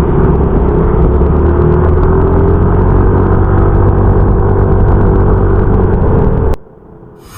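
Yamaha Mio i 125 scooter's single-cylinder engine running steadily on the move, with low rumble on the microphone. The sound cuts off suddenly near the end.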